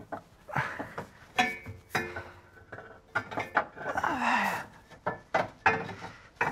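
New aftermarket steel exhaust pipe and silencer clanking and scraping against a car's underside and rear subframe as it is twisted into place: a run of irregular metal knocks, some ringing briefly, with a longer scrape about four seconds in.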